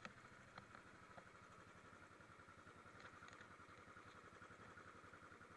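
Royal Enfield motorcycle engine idling faintly, a steady rapid low pulse.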